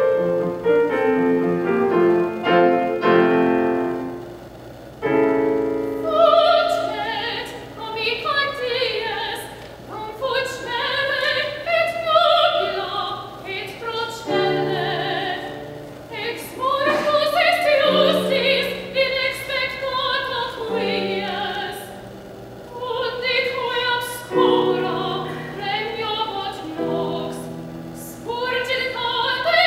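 Grand piano playing a short introduction, then a classically trained soprano begins singing with wide vibrato over the piano accompaniment about five seconds in, in long held phrases.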